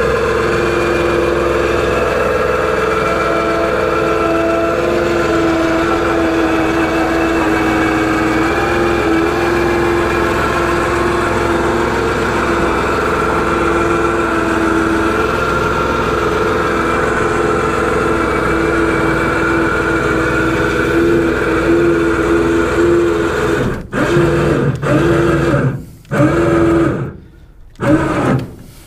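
Electric winch motor running steadily with a constant hum as it reels in cable, pulling an aluminum boat up a ramp into a pickup bed. Near the end it is jogged on and off in several short spurts, then stops.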